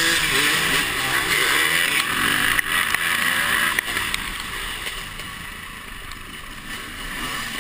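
Dirt bike engine running under throttle, its pitch rising and falling with the revs over a loud rushing noise. It gets quieter from about four seconds in as the rider backs off.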